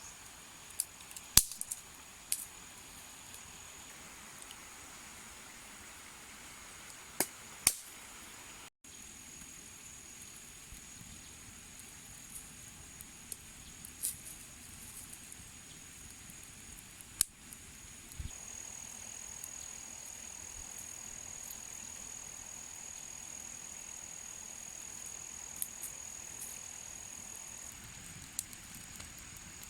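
A steady high insect drone, like crickets, gets a little louder about two-thirds of the way through. Now and then a sharp click or snap cuts across it.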